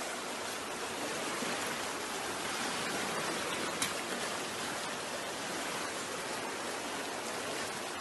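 Muddy floodwater rushing down a village street, a steady, even rush of water.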